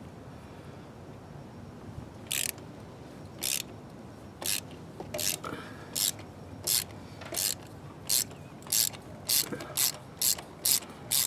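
Socket ratchet clicking in short back-strokes while a spark plug is unscrewed. It starts about two seconds in, and the strokes come faster and faster, about three a second near the end.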